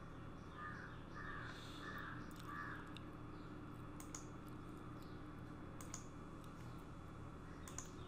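Faint room tone with a few computer mouse clicks in the latter half. In the first three seconds a bird calls four times in quick succession.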